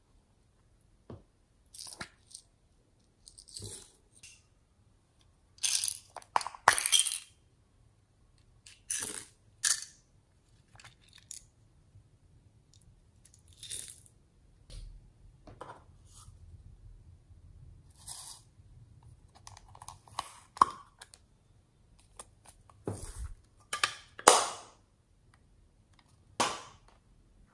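Irregular clicks, taps and short rustles of small plastic toys and containers being handled and set down.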